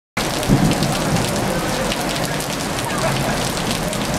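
Heavy rain falling steadily, cutting in abruptly just after the start.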